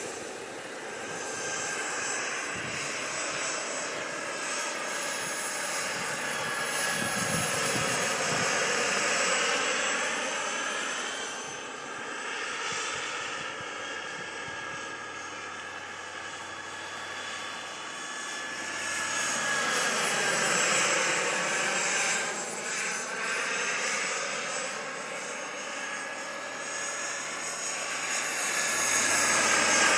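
Radio-controlled scale Lama helicopter in flight: a steady whine from its engine and rotors. The pitch swoops down and back up, and the sound grows louder, as it passes by about a third of the way in and again about two thirds in.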